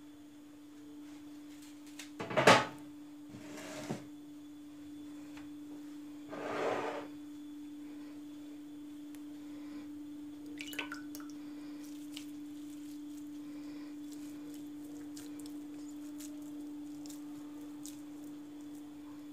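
Hands working minced meat onto a wooden kebab skewer and dipping into a bowl of water, heard as a few soft knocks and handling sounds, the loudest a sharp knock about two and a half seconds in. A steady low hum runs underneath.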